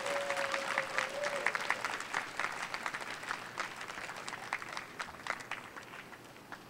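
Audience applauding, the clapping dense at first, then thinning out and fading away over several seconds.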